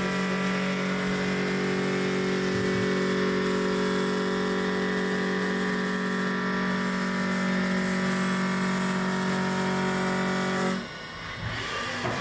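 Haas VF4 CNC vertical mill cutting a metal part with a 3/4-inch four-flute end mill: a steady pitched hum with a stack of overtones, which stops abruptly about eleven seconds in as the cut ends.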